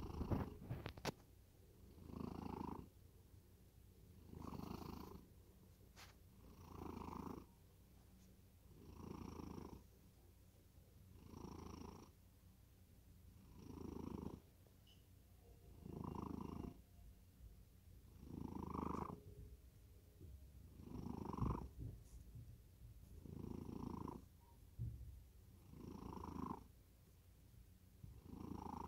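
A cat in deep sleep snoring, one breath sound about every two and a half seconds.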